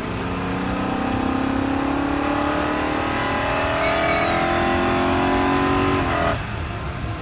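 Vehicle engine revving up, its pitch rising slowly and steadily for about six seconds, then cutting off suddenly near the end.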